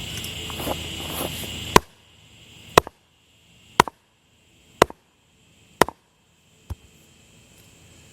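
Six sharp hammer blows about a second apart, the last one fainter, knocking a high spot down to level.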